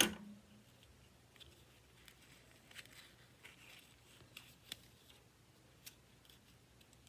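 Faint crinkling and crackling of paper being bent and pressed down by hand onto a glued collage, after one sharp click right at the start.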